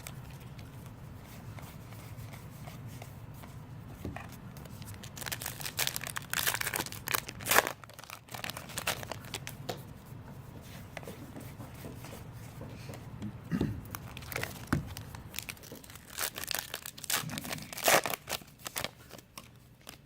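Trading-card pack wrappers being torn open and crinkled, in two bouts of crackling, about six seconds in and again near the end, over a low steady hum.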